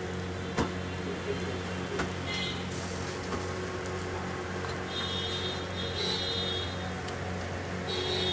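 Metal spatula scraping and tapping on a flat iron dosa griddle as noodle filling is spread across the dosa, over steady sizzling and a low hum.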